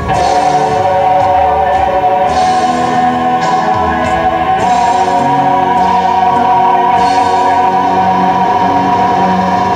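Live stage-show music: a cast singing together over band accompaniment, holding long notes, with a higher note joining about halfway through.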